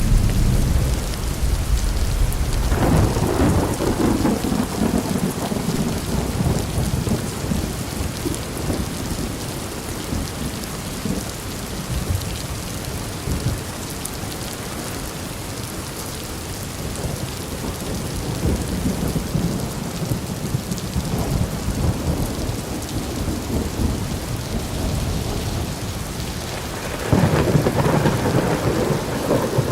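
Steady rain with rolling thunder: a long rumble swells about three seconds in and another near the end.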